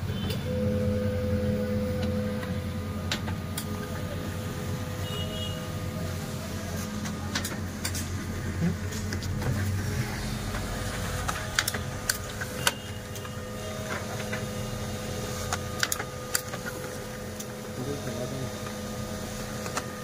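HP LaserJet M1005 MFP running a copy job, its drive gear train giving a steady mechanical whir with a fixed tone. Sharp clicks come in from about ten seconds on. This gear noise is the fault being traced.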